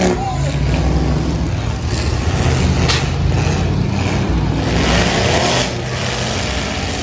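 Engines of several pickup trucks running and revving together. There is a single sharp bang about three seconds in.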